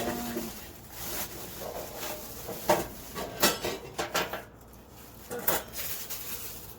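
Metal grill parts clinking and clattering as they are handled and set down, a string of separate sharp knocks.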